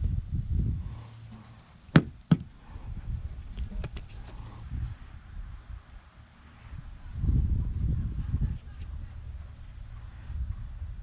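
Two sharp knocks on wood, about a third of a second apart, about two seconds in, followed by a few fainter knocks over low rumbling noise.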